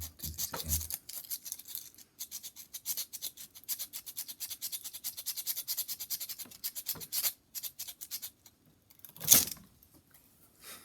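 Coarse 60-grit sandpaper rubbed quickly back and forth along a ferrocerium (ferro) rod, a rapid run of scraping strokes that stops about 8 seconds in, followed by one louder single scrape about a second later.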